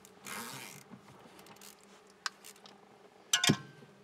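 Ratchet wrench spun quickly on the steering wheel's centre nut for about half a second near the start, a rapid zipping rattle, then a few light clicks and a loud sharp clatter about three and a half seconds in.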